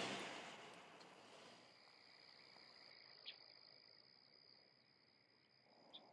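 Faint, steady high-pitched chirring of crickets at night, with a hiss that fades out over the first second or two.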